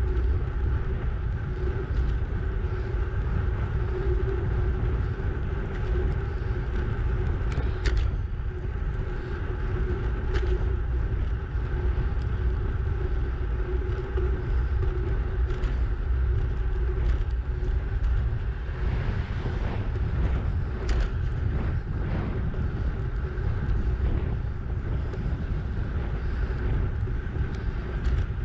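Wind noise on the microphone of a bicycle-mounted camera at about 30 km/h: a steady low rumble with a steady hum above it and a few brief knocks.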